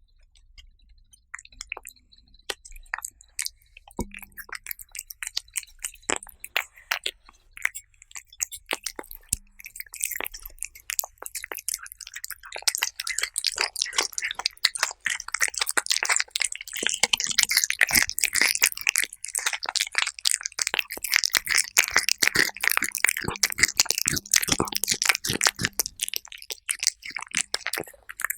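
Cats chewing and crunching food up close. There are sparse bites and clicks for the first dozen seconds or so, then dense, quick crunching that carries on until just before the end.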